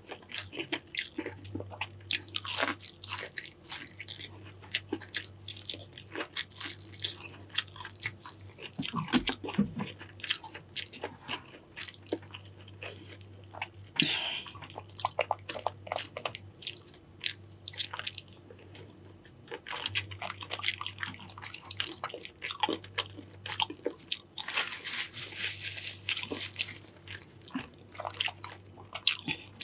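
A person eating seafood boil up close: irregular biting, crunching and chewing, with louder runs of crunching at intervals.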